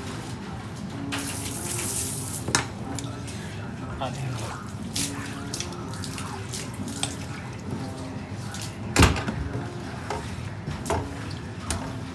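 Pre-rinse spray faucet spraying water into a stainless steel sink and over a work counter, loudest from about one to two and a half seconds in, with scattered knocks and clatter; the sharpest knock comes about nine seconds in.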